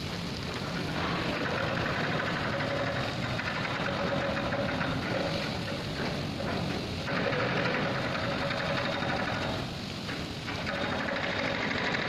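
Steady mechanical running of a spillway flap gate's hydraulic hoist as it works the gate, with a faint steady tone, mixed with water spattering off the steel gate leaf.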